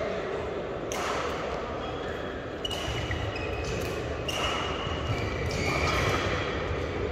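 Badminton rally in a large hall: rackets striking the shuttlecock every second or so, with footwork and short shoe squeaks on the court floor, echoing in the hall.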